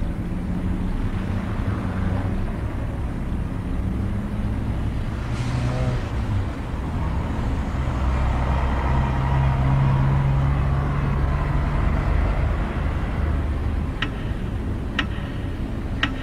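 Low, continuous rumbling drone with held deep tones, like a night-city traffic bed under a television countdown soundtrack. Near the end come three sharp clock ticks a second apart, leading into the midnight chimes.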